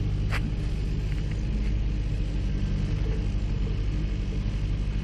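Mini excavator's diesel engine running steadily under load as the arm and bucket work, with one short sharp click about half a second in.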